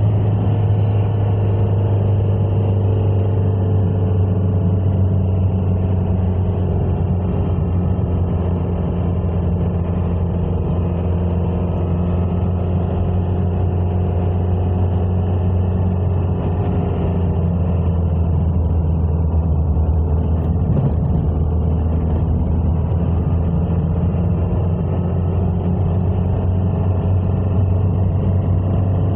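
A car driving along the road: steady engine and road noise with a strong low hum, the engine pitch drifting slightly up and down.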